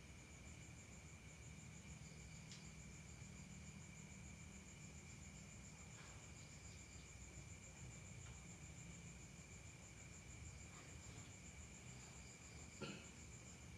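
Faint crickets trilling steadily, with a steady lower whine beneath them and a single soft knock near the end.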